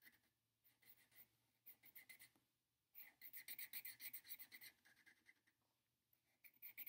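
Black felt-tip marker scribbling on sketchbook paper, colouring in a shape with quick back-and-forth strokes. The faint scratching comes in several bursts with short pauses between them, the longest burst in the middle.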